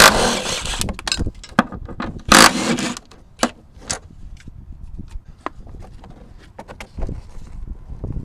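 Impact wrench run in two short bursts, about a second and under a second long, working a suspension nut or bolt off the rear shock mount. It is followed by scattered clinks and knocks of tools and metal parts being handled.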